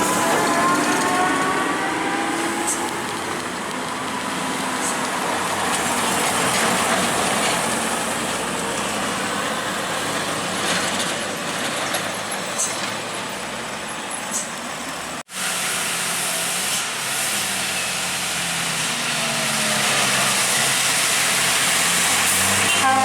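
Heavy diesel trucks and buses passing on a steep uphill road: engine drone shifting in pitch over tyre and road noise, with a brief dropout about fifteen seconds in.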